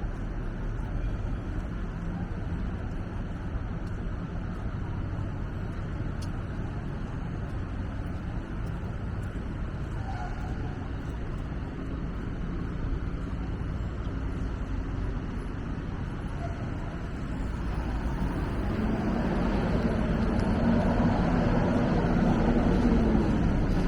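City street traffic: a steady hum of cars on the road, growing louder over the last several seconds as a vehicle with a low, steady engine hum draws close.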